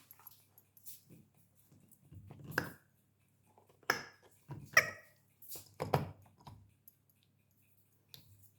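Husky puppy chewing on a squeaky rubber treat ball: a few short squeaks from the toy mixed with clicks of teeth on rubber, coming in separate bursts a second or so apart.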